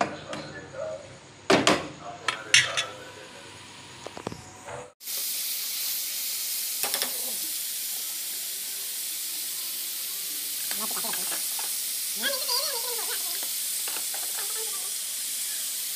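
A few clicks and knocks, then about five seconds in a steady sizzling starts suddenly: onions and chopped tomatoes frying in hot oil in a wok.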